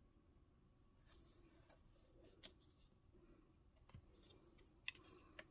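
Near silence, with a few faint paper rustles and light taps as hands handle and press down taped cardstock.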